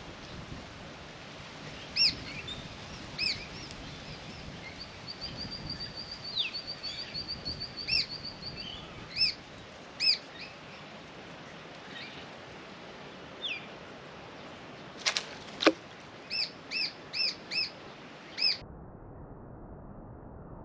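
Small birds chirping: single short, sharp chirps, a fast trill running for a few seconds from about five seconds in, and a quick run of five chirps near the end. Two sharp clicks just past the middle.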